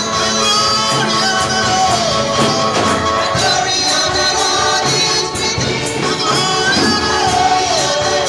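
Gospel-style music with singing voices over a regular tambourine beat.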